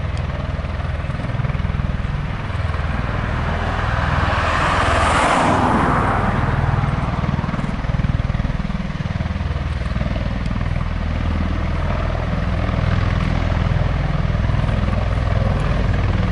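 V-22 Osprey tiltrotor taxiing with its two turboshaft-driven rotors turning in helicopter mode: a steady, deep, uneven rotor beat under a rushing engine noise. The rush swells louder about four seconds in and fades back by about seven seconds.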